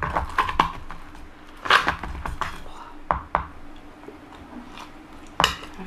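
Scattered clinks and knocks of dishes and utensils being handled, about eight or nine sharp strikes, with a low rumble under the first half.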